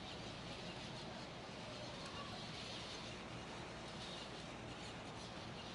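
Rain falling steadily, an even hiss with no break.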